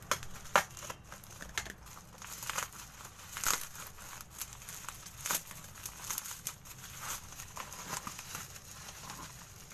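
Plastic parcel wrapping crinkling and tearing as it is cut with a knife and pulled open by hand: irregular sharp crackles throughout, loudest about half a second in.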